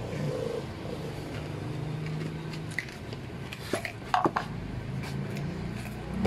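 A few light clicks and taps of hand tools being picked up and handled about four seconds in, over a low steady background hum.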